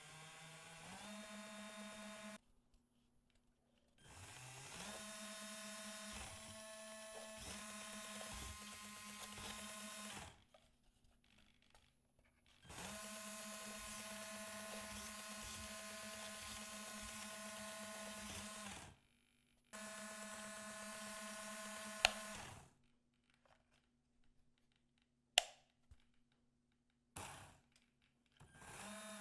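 Small DC gear motors of a 3D-printed four-wheel-drive RC car whining in runs of several seconds, stopping in between; some runs start with a rising pitch as the motors spin up. A sharp knock comes about 22 seconds in and another a few seconds later.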